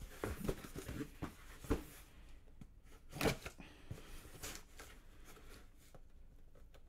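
Knife slitting open a cardboard shipping box: irregular scrapes, rustles and small knocks, the loudest about three seconds in.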